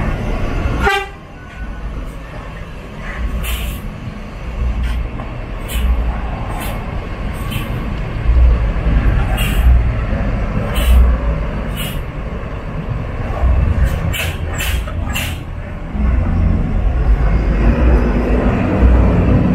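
Mercedes-Benz OH 1626 bus's diesel engine running, its low rumble swelling and easing, with about a dozen short, sharp hisses in its middle stretch.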